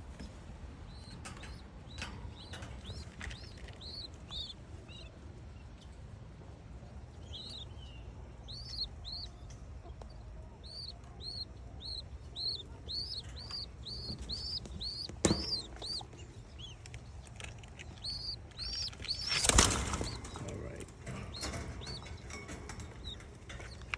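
Young pigeon squabs peeping, a rapid series of short high squeaks, about two a second, as they beg for food. A loud flurry of wing flaps comes about two-thirds of the way through.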